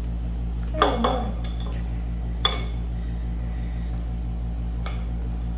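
Metal cookie-dough scoop clinking against a glass mixing bowl: two sharp clinks with a short ring, about a second in and about two and a half seconds in, then a fainter tap near the end, over a steady low hum.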